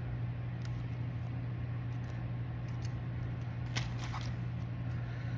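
Scissors snipping a craft feather, a couple of short sharp clicks close together near the end, over a steady low hum.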